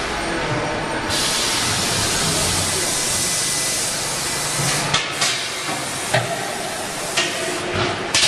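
A steady, loud hiss from industrial machinery, starting about a second in and stopping near five seconds, followed by a few sharp knocks.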